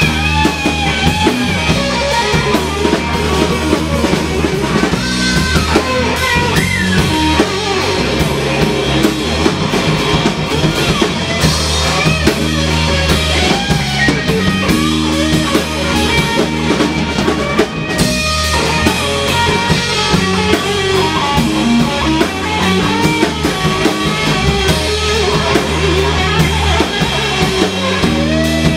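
Live rock band playing an instrumental passage: electric guitar lead with bending, wavering notes over a steady bass guitar line and drum kit.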